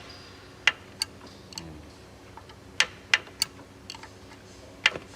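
About six sharp, irregular clicks and taps of hand tools against engine parts while a timing pin is being worked out during an engine teardown.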